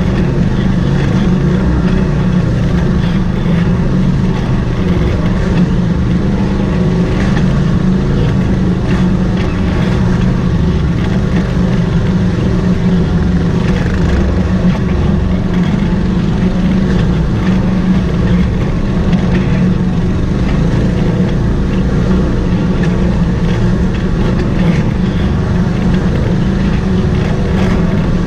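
Side-by-side UTV's engine running steadily as it crawls over a rocky trail, heard from on board as a constant low drone.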